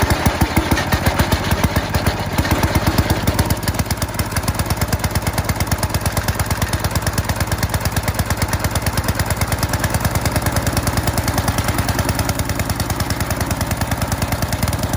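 Small gasoline engine of a wood chipper running steadily with a fast, even pulse. The chipper, sold as not working, starts and keeps running.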